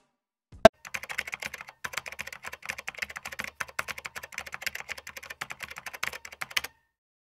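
Keyboard typing sound effect: a rapid run of small key clicks, keeping time with on-screen text typing out letter by letter, stopping shortly before the end. A single sharp click comes just before it, under a second in.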